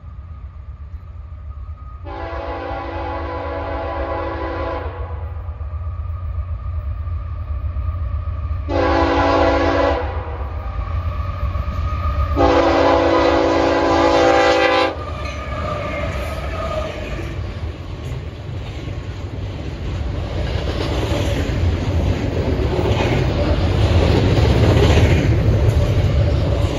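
Diesel locomotive's multi-chime air horn sounding three blasts, long, short, then long, over a steady low rumble. The train's wheel and engine noise then grows louder as it draws near.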